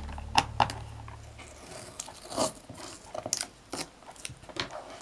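Background music fading out over the first two seconds, with sharp clicks and rustling as hands work on a round plastic gadget with a screwdriver. Scattered clicks and rustles of the plastic casing being handled follow.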